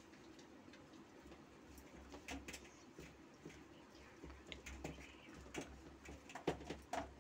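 Steel spoon pressing and spreading a crumbly dry-fruit mixture in a stainless steel plate: faint, irregular clicks and scrapes, with a few sharper ones near the end.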